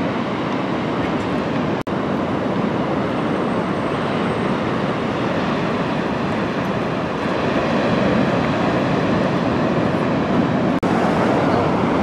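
Steady rushing noise of breaking ocean surf, dropping out for an instant twice.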